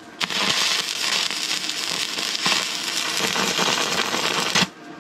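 MIG welder arc crackling steadily as a nut is welded onto a steel bolt, cutting off suddenly near the end.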